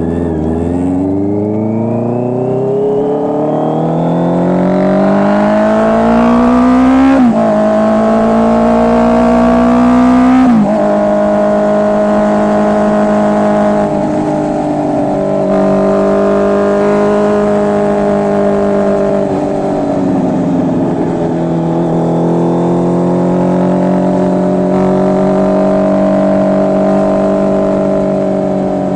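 Honda CB650R's inline-four engine through an SC Project full exhaust system, accelerating with its pitch climbing, dropping at upshifts about seven and ten seconds in, then running at a steady cruise.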